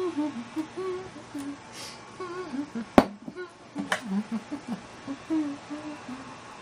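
A man humming, with a sharp knock about three seconds in and a lighter click about a second later.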